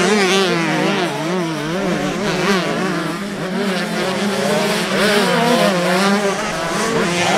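Motocross dirt bike engines racing on a dirt track, revving hard with the pitch rising and falling again and again as the riders work the throttle, more than one engine heard at once.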